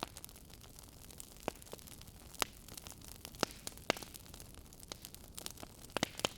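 Firewood burning, crackling with irregular sharp pops and snaps over a soft steady hiss.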